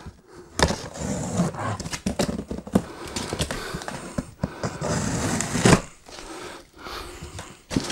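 Cardboard box being cut open: a knife drawn through the packing tape, then the cardboard flaps pulled open. Irregular scraping and crackling with sharp clicks, and one louder rip a little under six seconds in.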